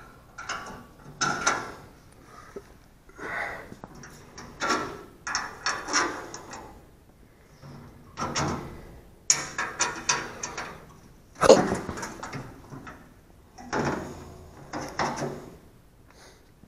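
Steel ring-handled pins being worked in and out of the brackets on a steel cart's tailgate: a run of metallic clinks and rattles, with one sharper clank about two-thirds of the way through.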